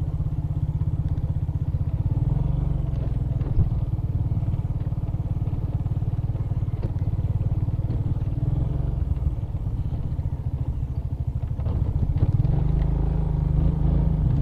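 Suzuki Smash Revo's small single-cylinder four-stroke engine running under load as the motorcycle climbs a rough dirt trail, with a few rattles over the bumps. The engine note swells about two seconds in and again near the end.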